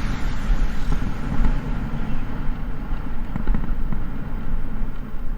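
Motorcycle on the move: a steady low rumble of the engine and wind buffeting the microphone.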